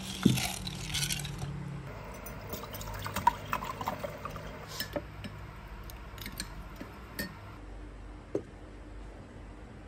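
A drink stirred with a plastic spoon in a plastic jug, then poured into a mug with small glugs and trickles, followed by a few light knocks.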